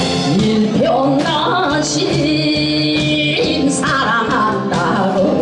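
A woman singing a Korean trot song into a microphone over loud backing music through a PA, her voice sliding and wavering, with one long held note in the middle.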